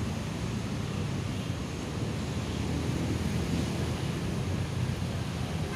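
Wind buffeting the camera microphone: a steady, fluttering low rumble with no distinct events.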